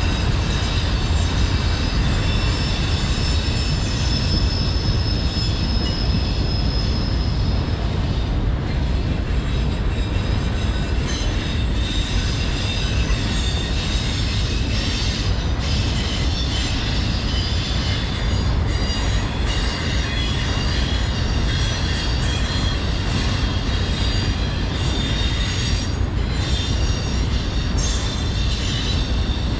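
Freight train's autorack cars rolling past: a steady rumble of steel wheels on rail, with a high wheel squeal that is strongest in the first several seconds, and light clicking from the rail joints.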